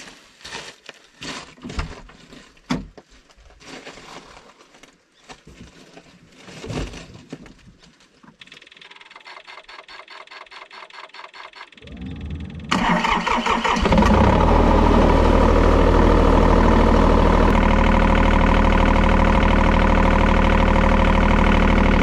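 John Deere 35G excavator's diesel engine being started: after some scattered knocks and clicks and a run of rapid ticks, it is cranked about twelve seconds in, catches, and then runs steadily at idle.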